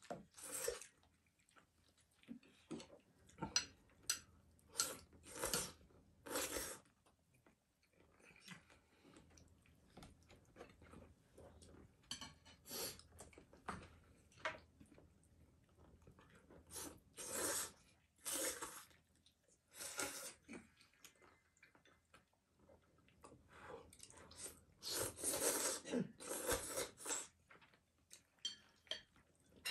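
Udon noodles being slurped and chewed from a bowl: repeated short, hissing slurps in clusters, with quieter chewing between them.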